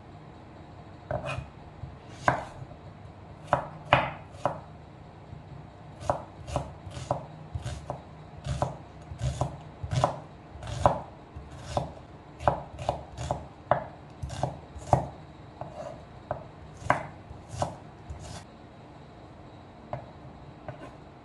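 Chef's knife chopping garlic and slicing red onion on a wooden cutting board: irregular sharp knife strikes on the board, in runs of quick strokes with short pauses.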